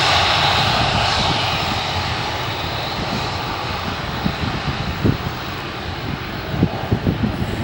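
Jet airliner's engines roaring past and slowly fading as the plane moves away. From about halfway through, wind buffets the microphone with low thumps.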